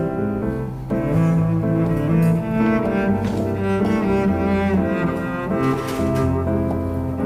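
Music on low bowed strings: a slow melody of held notes, each lasting about a second before moving to the next.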